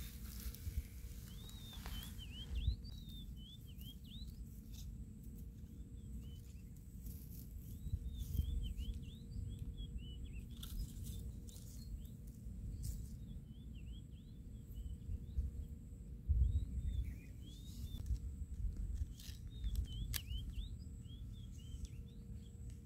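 Small birds twittering in short runs of quick chirps every few seconds, over a low rumble and the rustle of dry grass.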